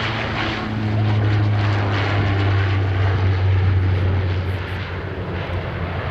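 Porter Airlines DHC-8-402 Q400's twin PW150A turboprops at takeoff power during the takeoff roll: a loud, deep propeller drone over engine and air noise, dropping slightly in pitch about a second in as the aircraft passes, then easing a little near the end.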